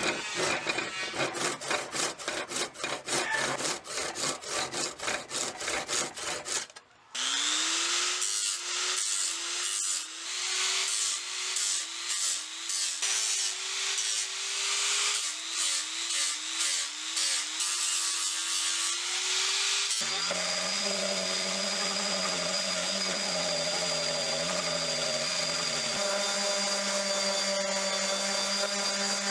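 A hand file rasps across a steel hammer head in quick, even strokes. About seven seconds in, a rotary polisher with a foam pad starts up on the head, its whine wavering as it is pressed on and eased off. About twenty seconds in, a random orbital sander takes over, running steadily on the wooden handle.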